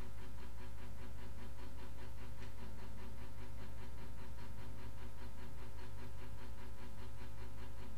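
Steady low hum with a quick, even pulsing hiss over it: constant room background noise, with no distinct sound from the cats.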